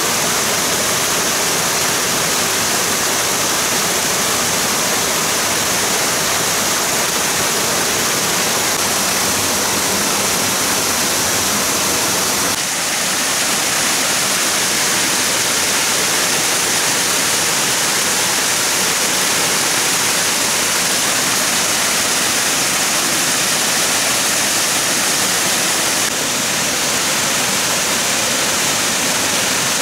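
Running water rushing steadily, an even hiss with no pauses.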